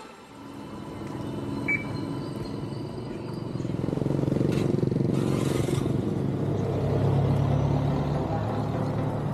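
Street traffic noise with a motor vehicle's engine running steadily, growing louder about four seconds in.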